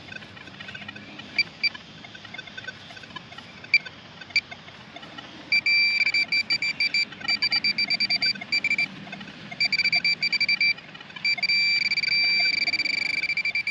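Metal detector's target tone: choppy high-pitched beeping that starts about halfway and becomes a nearly continuous tone near the end as the coil or probe closes in on a buried target. A few faint clicks come before it.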